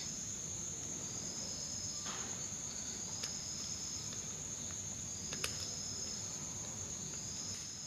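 Steady, high-pitched insect trill, like crickets, with a few faint clicks as new carbon brushes are pressed into the alternator's brush holder.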